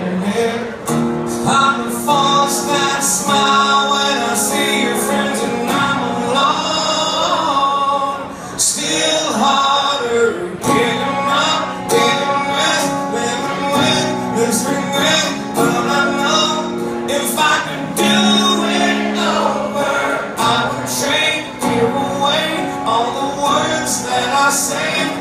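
A man singing a slow song into a microphone while strumming an acoustic guitar, amplified through a club PA, with held sung notes over steady strummed chords.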